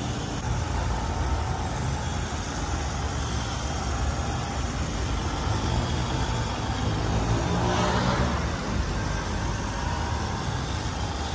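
Handheld electric polisher with a foam pad running against a motorcycle's plastic fairing, a steady machine drone that swells briefly about eight seconds in.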